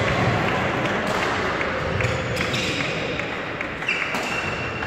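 Echoing badminton-hall noise: a steady hubbub of distant voices and movement, with a few sharp knocks of shuttlecocks being hit on nearby courts. A high, steady tone starts near the end.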